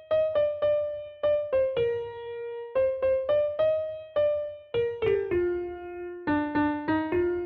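Background music: a simple melody of separate struck notes, each fading quickly, about two to three notes a second.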